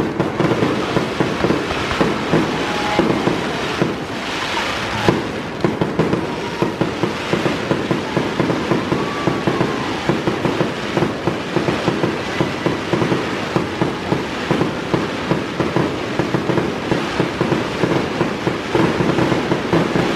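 Aerial fireworks going off in a continuous barrage: shells bursting over a dense, fast run of sharp pops and crackles, several a second, that keeps up through the whole display.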